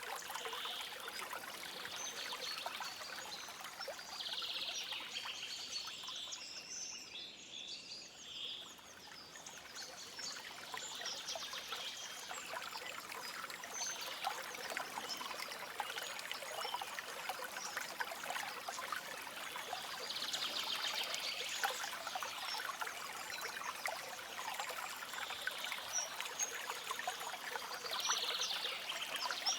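A small stream trickling and splashing steadily, dipping briefly about eight seconds in, with short trilled bird calls now and then.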